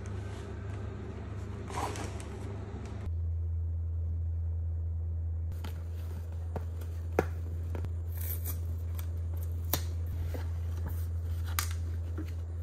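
Paper bag rustling for about three seconds, then a cardboard pastry box being handled and opened on a countertop, with a few sharp taps and clicks over a low steady hum.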